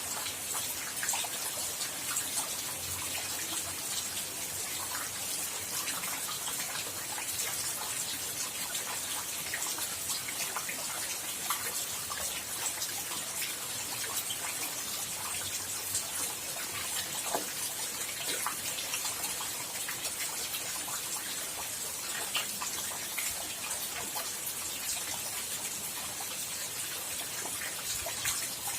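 Steady rain falling, a continuous hiss with many small, sharp drop impacts scattered through it.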